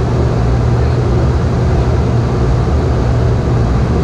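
Boeing 717 cabin noise: a loud, steady drone from its rear-mounted Rolls-Royce BR715 turbofans, with a constant low hum underneath.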